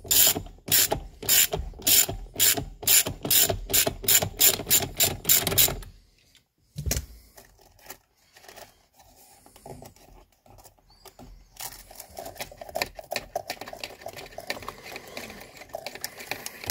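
Ratchet wrench clicking steadily, about three clicks a second, as it backs out the steering wheel's central Torx bolt, which is turning easily. The clicking stops about six seconds in, a single knock follows, and fainter, quicker clicking starts again later.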